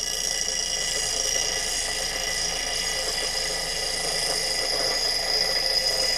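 Bench grinder's wheel grinding the edge of an old hand-forged iron axe head, a steady grinding with a high whine, taking out the nicks and divots in the blade.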